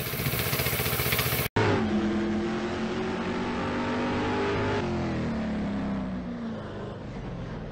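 A 1932 Ford Model A rat rod's four-cylinder engine running with an even beat, cut off abruptly about a second and a half in. Then an engine sound in the outro, its pitch falling slowly and fading.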